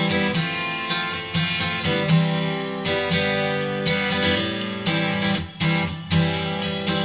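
Background music: strummed acoustic guitar playing chords.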